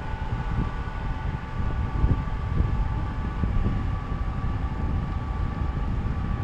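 Motorboat engine running, a steady drone with a few constant tones over a deep, uneven rumble.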